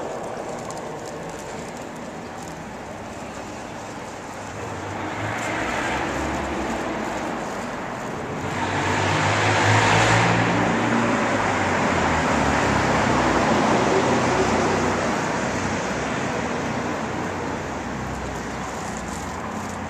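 Road traffic noise, with a passing vehicle swelling to its loudest about halfway through and fading away over the following several seconds.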